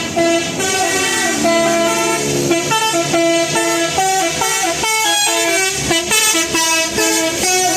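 Bus 'telolet basuri' musical horn playing a quick tune, its notes stepping up and down several times a second.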